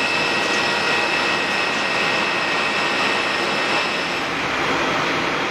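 Boeing 747-400's four turbofan engines running at taxi power: a steady high whine over a broad rush, its highest tone fading about four seconds in.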